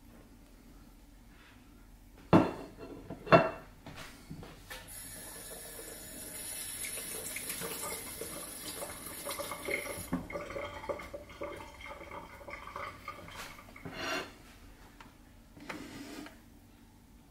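Two sharp knocks as the sauce bowl is tapped against the air fryer basket, then kitchen clatter and about five seconds of running water, like a tap, that cuts off suddenly. A couple more knocks come near the end.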